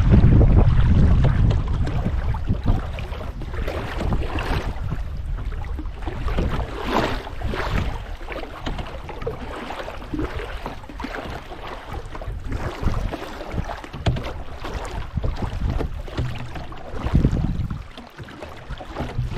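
Canoe paddle strokes swishing through the water about every couple of seconds, with wind buffeting the microphone, heaviest at the start.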